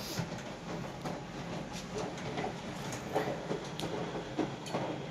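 IFB front-load washing machine running, its drum turning with a steady low rumble and scattered light clicks.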